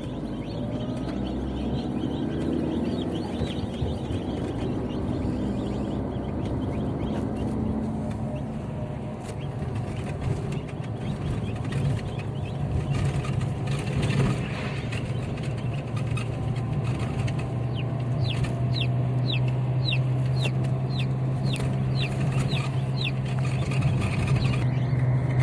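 Ross 308 broiler chicks peeping, with a run of short, high, falling peeps at about two a second in the second half. Underneath is the steady hum of the moving car.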